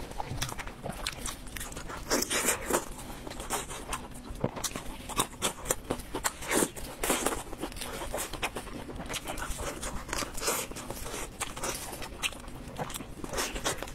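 Close-miked eating sounds: crispy food crunching as it is torn apart and bitten, with chewing, in a steady run of sharp crackles and crunches.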